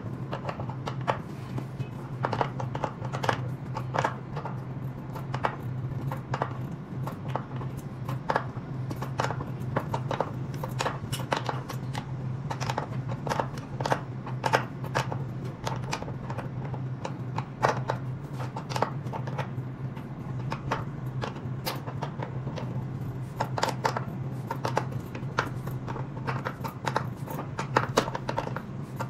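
Ratchet wrench clicking in short irregular runs as it works the top mounting nut of an electric scooter's front spring shock absorber, over a steady low hum.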